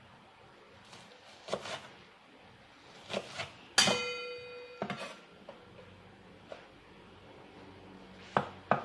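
A kitchen knife knocking on a wooden cutting board while slicing onion, in a few scattered strokes. Just before four seconds in, a louder strike sets off a bright metallic ring that lasts about a second and is cut off suddenly.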